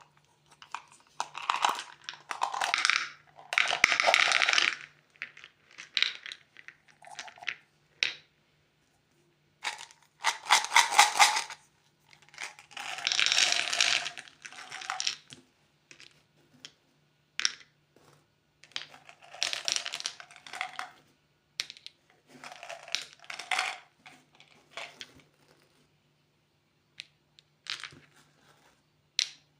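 Plastic candy wrappers crinkling as candy is unwrapped, in irregular bursts of a second or two, with sharp clicks and taps in between.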